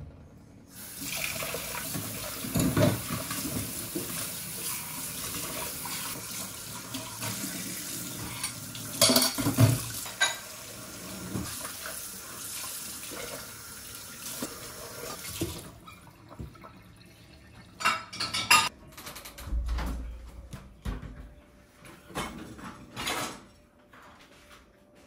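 Kitchen tap running into a stainless steel sink while dishes are rinsed under it, with the clink of crockery knocking against the sink. The water stops about 15 seconds in, and scattered clatter and knocks of dishes and a dishwasher rack follow, with one low thump.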